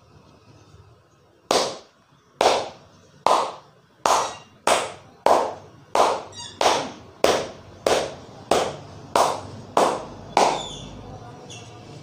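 A barber's hands slapping rhythmically in a percussive massage: about fourteen sharp, loud slaps, about one a second at first and then a little faster. Each slap rings out briefly.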